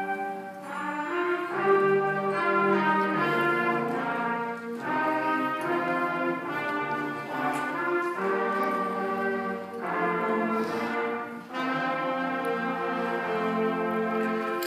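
Student concert band playing a slow, smooth legato passage: held chords of brass and woodwinds that change every second or two, with brief breaths between phrases.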